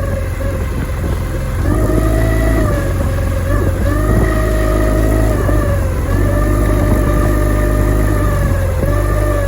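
Suzuki 9.9 hp outboard motor running unevenly, its speed rising and falling every second or two. It is misfiring, which the owner blames on spark plugs fouled by Techron Marine fuel treatment.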